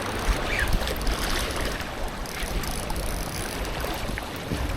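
Moving water, a steady hiss with faint ticks, under a low rumble of wind on the microphone.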